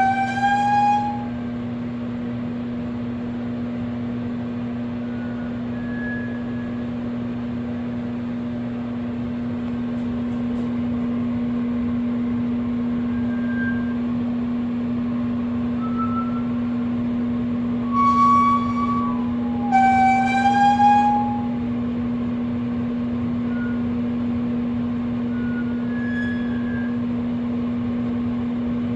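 Microwave oven running with a steady electrical hum, over which it gives out short high squeals that waver in pitch: one near the start and two close together about two-thirds of the way through, with a few faint short chirps in between.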